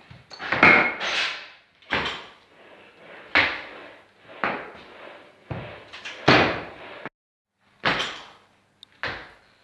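A string of sharp knocks and thuds, about nine and irregularly spaced, the loudest near the start. They come from a loaded barbell with bumper plates clanking and from feet stamping on the lifting platform as a weightlifter does jerks from the stands.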